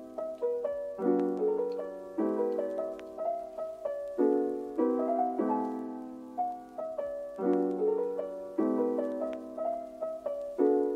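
Background piano music: a gentle melody over chords struck about once a second, each note fading away.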